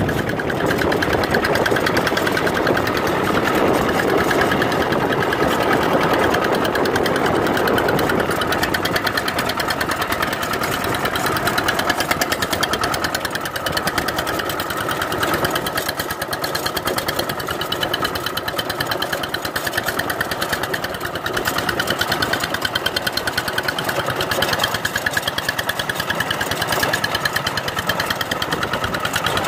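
Two-wheel walk-behind tractor's single-cylinder diesel engine running steadily with fast, even firing pulses as it pulls a rotary tiller through wet paddy mud. It is somewhat louder and rougher in the first several seconds.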